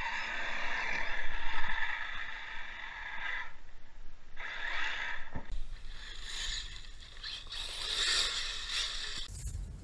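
Electric RC truck running on loose gravel and sand: its brushless motor whines and the tyres scrabble, swelling and fading as it drives about. The sound changes abruptly about halfway through.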